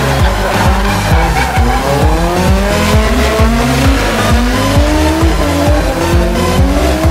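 Drift car engines revving hard in repeated rising sweeps, with tyre squeal as the cars slide in tandem, mixed with dance music that has a steady thudding beat.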